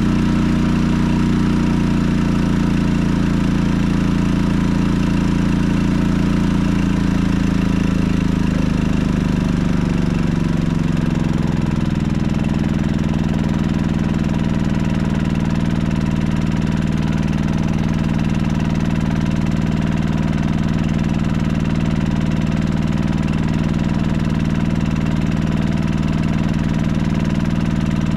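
Firman WH3200IE inverter generator engine running hard under a load of about 1,450 W from a battery charger and water heater. About a third of the way through, its pitch slides down as the engine slows, and it runs on steadily at that lower speed. This is the engine struggling with the thin air at 10,000 ft: its output sags to the mid-70s volts without tripping the breaker.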